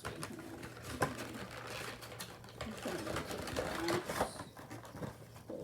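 Handling of a toy's cardboard-and-plastic box: a rapid run of small clicks and crinkles.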